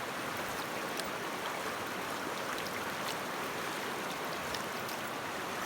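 Rocky river flowing: a steady rushing of water over stones.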